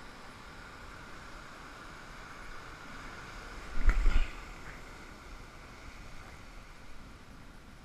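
Rough surf washing over rocks, a steady rushing noise, broken about four seconds in by a brief loud rumbling thump on the microphone.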